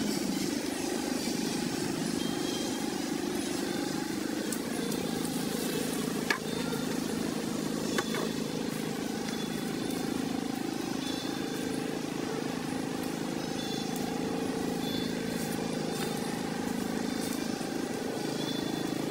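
Outdoor ambience: a steady low rumble like distant traffic, with short high chirps repeating every second or so. Two sharp clicks come a couple of seconds apart, about a third of the way in.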